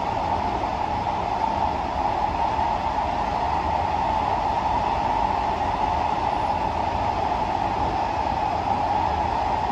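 Steady interior running noise of a Kawasaki–CSR Qingdao Sifang C151B metro train in motion: an even rumble of wheels on rail with a strong hiss-like band, holding level with no changes.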